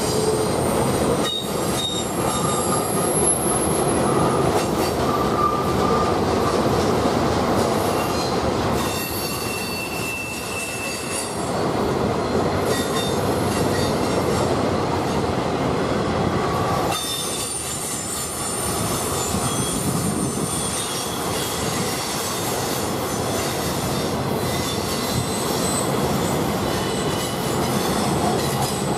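Freight train rolling past, its steel wheels rumbling on the rails. High-pitched wheel squeals come and go, the flanges grinding against the rail on the curving track.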